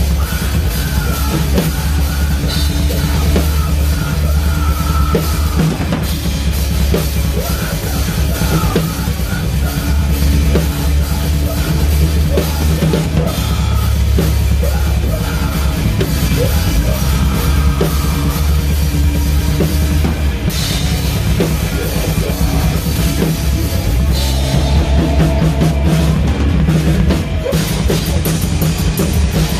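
Death metal band playing live, with the drum kit loud and to the fore: rapid bass drum and cymbal strokes under distorted guitars.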